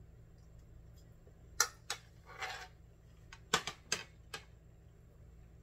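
Fork and plate clinking in a few short clicks as they are set down, with a short sharp breath out in the middle from a mouthful of very hot food.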